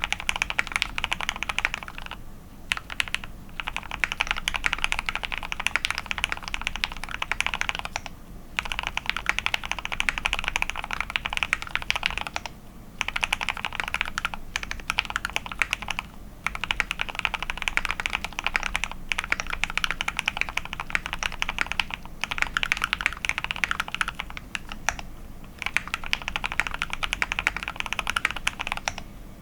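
Fast typing on a KBDFANS Tofu65 custom mechanical keyboard with lubed Gateron Oil King linear switches on a polycarbonate plate and XDA keycaps: a dense run of key clacks with short pauses every few seconds.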